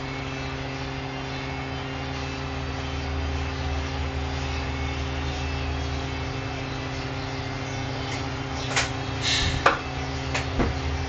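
Steady low electrical or machine hum with background hiss, with a few short, sharp noises about two seconds before the end.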